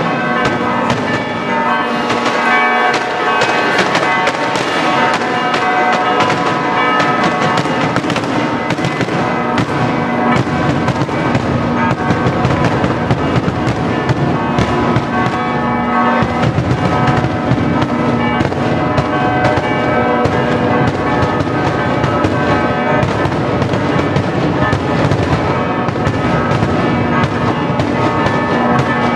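Maltese daytime festa fireworks (diurno) going off in continuous rapid volleys of bangs and crackles, over church bells ringing without pause.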